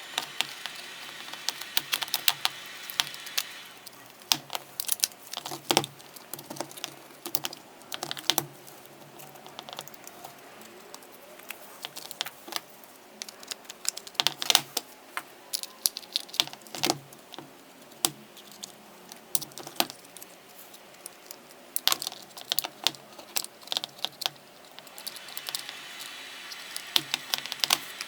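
Irregular small clicks and taps of plastic and metal parts being handled and fitted as a cordless hammer drill's trigger assembly and housing are put back together.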